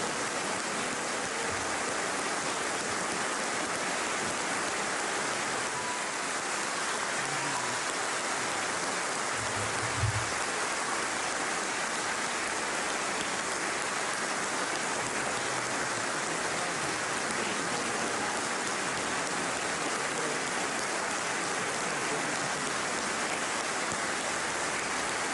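Sustained applause from a large crowd of standing members of parliament, dense and steady, with one short low thump about ten seconds in.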